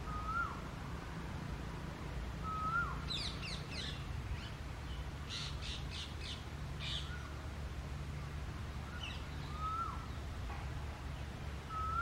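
Rose-ringed parakeets give two bursts of rapid, shrill, harsh screeches in the middle, the calls of females squabbling over a nest hole. Through it, a short whistled note that rises then drops sharply repeats every two to three seconds.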